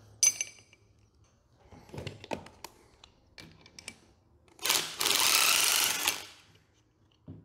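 Cordless impact driver hammering in one burst of about a second and a half, near the end, on a car A/C compressor. Before it come scattered metallic clinks of tools and parts on the workbench.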